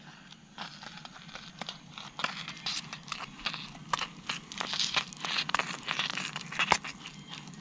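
Metal spoon stirring and scraping thick food in a metal camping pot: a rapid, uneven run of clicks and scrapes, with a plastic food packet crinkling. A steady low hum, which fits the canister gas stove burning under the pot, runs underneath.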